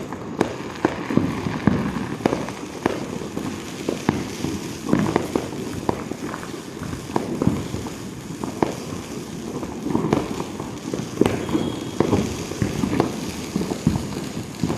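Diwali firecrackers and fireworks going off all around: many sharp bangs and pops at irregular intervals, some close and loud, over a steady crackling haze of more distant blasts.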